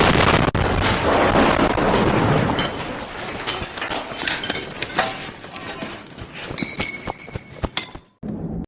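An explosion: a sudden loud blast at the start, then a long noisy rumble with scattered sharp cracks and pops. It cuts off abruptly near the end.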